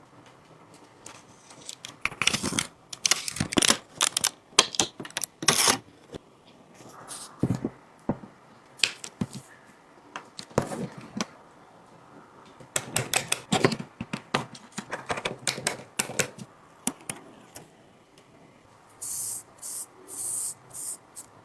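Irregular clusters of sharp clicks and taps of small repair tools and parts against a smartphone. Near the end come a few short, high-pitched hissy scrapes.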